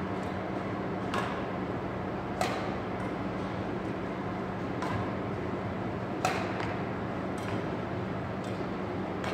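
Badminton rackets hitting a shuttlecock back and forth in a rally: sharp clicks about every second or so, the loudest about two and a half and six seconds in, over a steady low hum.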